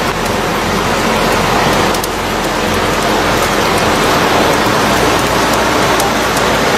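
Heavy rain pouring down onto a flooded street, a steady dense hiss.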